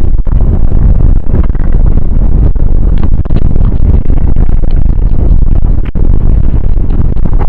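Earth-rumble sound effect: a loud, continuous deep rumble with a rough, crackling texture, dropping out for an instant about six seconds in.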